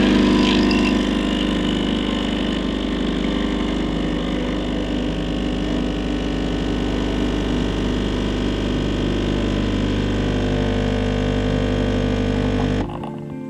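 De'Longhi espresso machine's vibratory pump running steadily while it pulls a double shot of espresso through a bottomless portafilter; the pump cuts off near the end.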